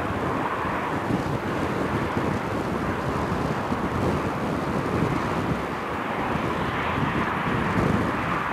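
Boeing 757-200 freighter's twin jet engines, a steady distant rumble as the aircraft flies away on final approach and lands, with wind buffeting the microphone.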